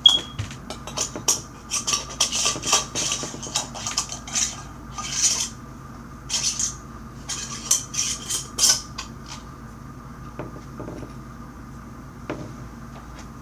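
Utensil scraping and clicking against a container of slime: a busy run of short scratchy strokes and clicks that thins out to a few faint clicks over the last few seconds.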